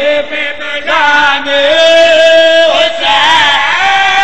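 A man's voice chanting a zakir's sung majlis recitation through a microphone, in drawn-out notes that slide between pitches. It breaks briefly just under a second in, then comes back with a long held note.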